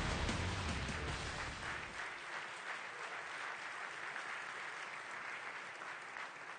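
Audience applause slowly fading away, with the low end of the reveal music dying out in the first couple of seconds.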